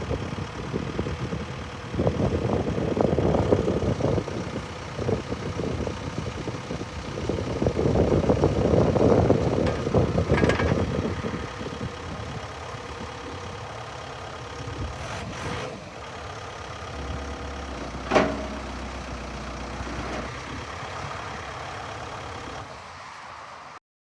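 The 98 hp Volvo diesel engine of a 2005 Volvo BL70B backhoe running, loud and uneven for about the first half, then steadier and quieter. A single sharp clank comes about 18 seconds in, and the sound cuts off shortly before the end.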